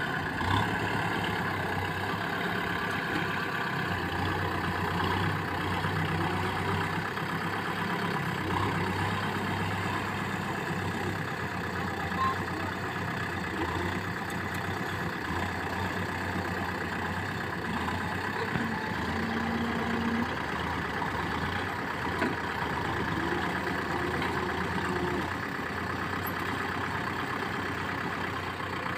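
Farm tractor diesel engines running steadily at a low, even hum.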